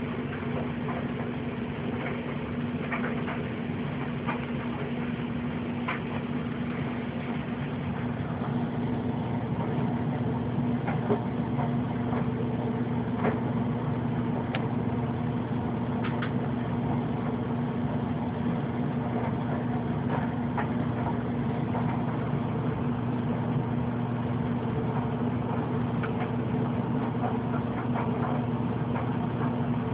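Steady low mechanical hum, with a few faint scattered clicks.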